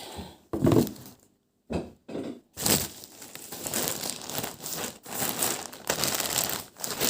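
Packaging crinkling and rustling as it is handled and opened, in short irregular bursts at first and then a denser stretch of crackling through the second half.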